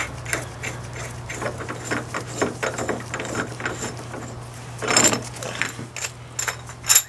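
Irregular metallic clicks and clatter of a steel bearing puller being worked open to fit around a Dana 44 carrier bearing, with a louder clatter about five seconds in and a sharp clack near the end.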